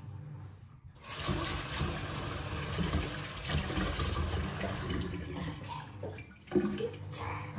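Kitchen tap running into a stainless steel sink, water splashing over hands being washed under it. The water comes on suddenly about a second in and stops near the end.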